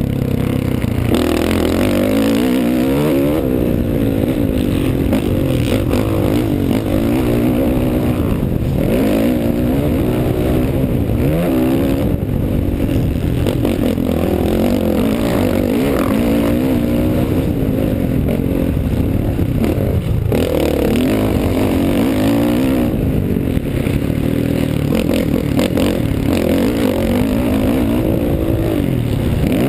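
Motocross bike engine revving up and down over and over while being ridden hard, its pitch climbing and dropping every second or two, heard from a camera on the rider's helmet.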